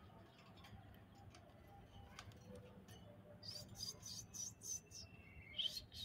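Ringneck parakeets chirping: a quick run of short, high squeaks starts about three and a half seconds in, then a louder call comes near the end, over a faint low hum.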